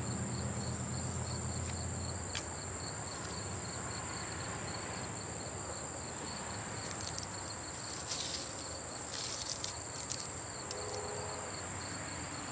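Insects singing: a steady, high-pitched chirring trill, with a few faint rustles and small taps about two-thirds of the way through.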